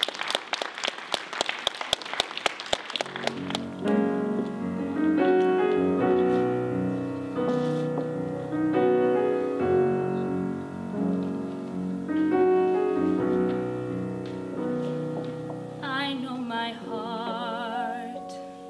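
Audience applause that dies away after about three seconds. A piano then plays a chordal introduction, and near the end a solo singing voice with a wide vibrato comes in over it.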